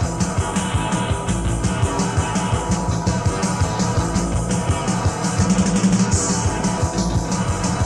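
Punk rock recording: electric guitar and drum kit playing at a fast, steady beat.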